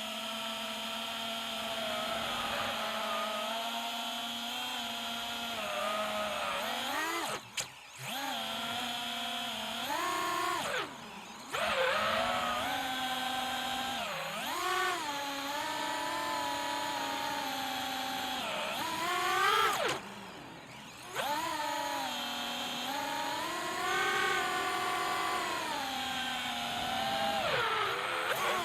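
FPV freestyle quadcopter's brushless motors whining, the pitch rising and falling as the throttle is worked. The sound drops out briefly three times as the throttle is cut, about a third, two fifths and two thirds of the way through, and then picks up again.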